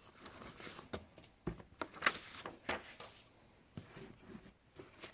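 Paper and packaging rustling and crinkling as a sneaker box is unpacked by hand, in a run of short, irregular crackles and light taps, loudest a little after two seconds in.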